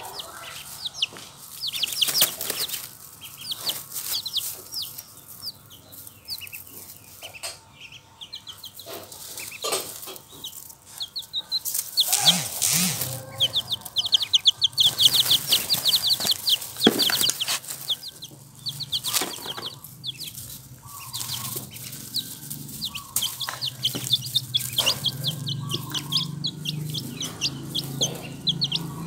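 Baby chicks and ducklings, about four days old, peeping high and fast in quick runs, busiest about halfway through, with rustling and pecking in dry straw.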